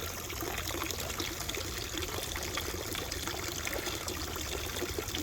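Public drinking fountain running, water pouring steadily from its spout.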